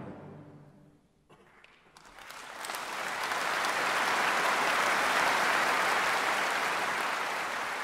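An orchestra's last chord dies away into a brief hush. Then a concert-hall audience breaks into applause that builds for a few seconds and slowly eases.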